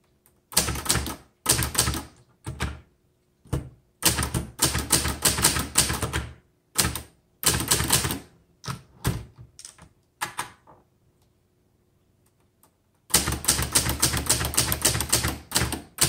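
1969 Hermes 3000 manual portable typewriter being typed on: runs of quick, sharp type-bar strikes with brief pauses between them. There is a pause of about two seconds past the middle, then a final fast run.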